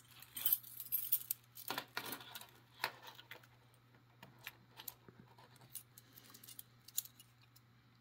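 Small metal lock-picking feeler tools clinking together as one is picked out, then a few light metal clicks and ticks as the thin feeler is worked in between the wheels of a brass combination padlock, with one sharper click near the end.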